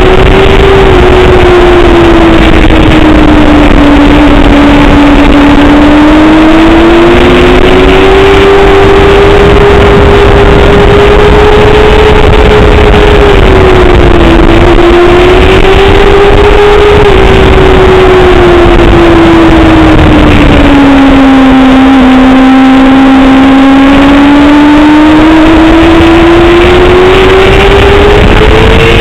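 Honda sports motorcycle's engine heard from the rider's seat at racing speed, its pitch rising and falling with the throttle, dropping for a long stretch about two-thirds of the way through and then climbing again. Heavy wind noise roars under it.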